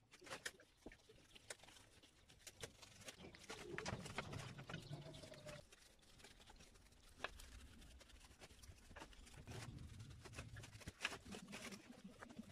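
Faint scrubbing of a stiff brush on a small engine's crankcase and cylinder, wet with cleaning fluid in a metal tray, with scattered light clicks as the brush knocks against the metal.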